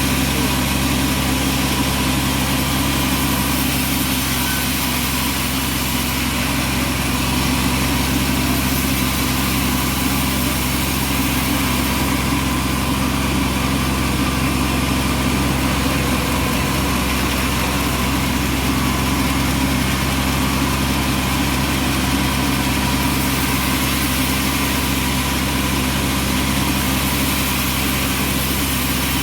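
Bandsaw sawmill running, a steady engine drone that holds the same pitch throughout.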